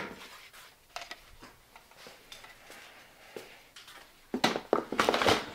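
Things being moved and set down in a small room: a sharp knock at the start, a few light clicks, then a burst of clattering and scraping near the end.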